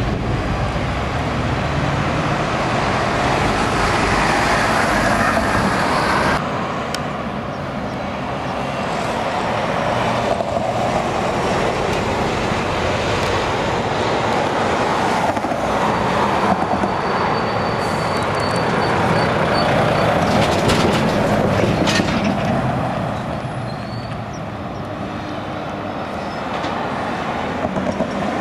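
Road traffic with heavy lorries: diesel trucks and cars driving past, engines and tyre noise blending into one steady noise. It changes abruptly about six seconds in and again a little after twenty seconds.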